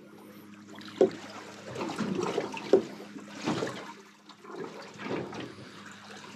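Water sloshing and lapping against a boat's hull, swelling and ebbing, over a steady low hum. Two sharp knocks about a second in and near the middle.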